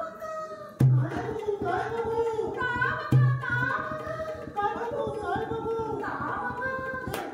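A song sung with Indian drum accompaniment, the voice held on long bending notes. Two heavy drum strokes land about a second in and about three seconds in.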